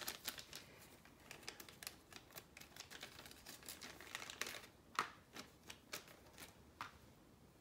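Faint crinkling and rustling of a small clear plastic bag being opened and handled, with scattered light ticks, the sharpest about five seconds in.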